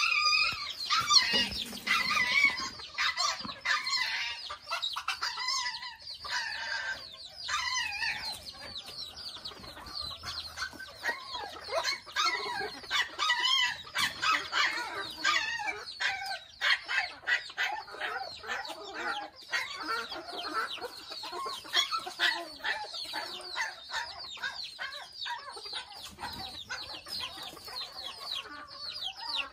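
A flock of mini Thai bantam chickens clucking and calling, a rooster crowing near the start, with a dense run of short high calls from chicks through the middle and later part.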